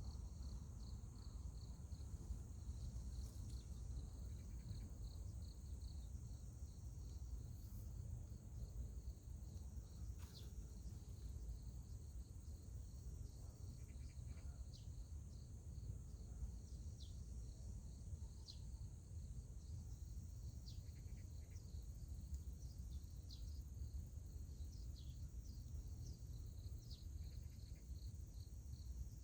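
Crickets and other insects chirping steadily in a rapid pulsing trill, with short scattered chirps over it and a low steady rumble underneath.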